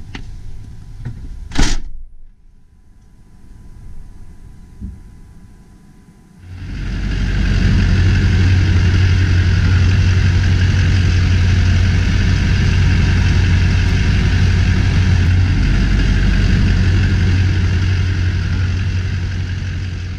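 A vehicle door slams shut about one and a half seconds in. From about six seconds in, a steady, loud, deep rumble: the H2 Hummer's swapped-in Duramax V8 turbo-diesel running.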